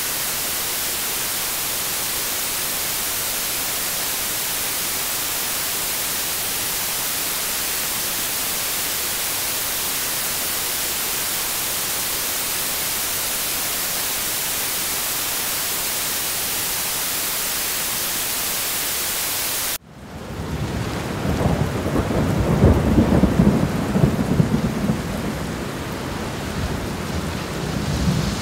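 Steady white noise, an even unchanging hiss, that cuts off abruptly about 20 seconds in. A thunderstorm follows: rumbling thunder that swells and fades over rain.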